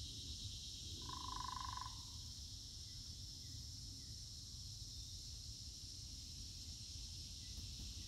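A frog gives one short pulsed trill of about a second, about a second in, over a steady high-pitched background chorus.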